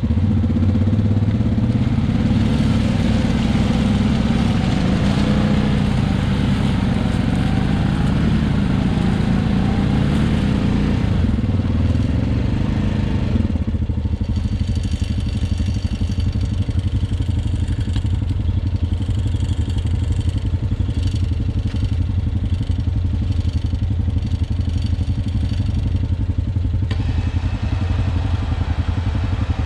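ATV engines running. For roughly the first 13 seconds they run harder, with the revs rising and falling as the stuck Can-Am quad is pulled free of the bog on the tracked ATV's winch line. They then settle to a steady idle.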